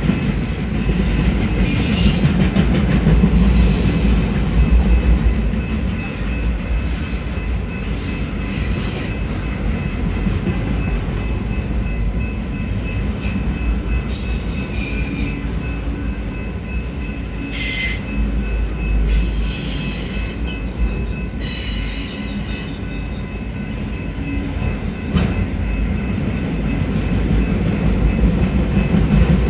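Freight cars of a long intermodal/autorack train rolling past, wheels running on the rails with a steady low rumble and repeated brief high-pitched wheel squeals.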